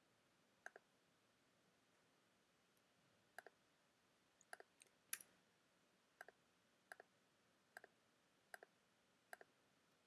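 Faint computer mouse button clicks, mostly quick press-and-release pairs, about ten of them at irregular intervals. The loudest comes about halfway through.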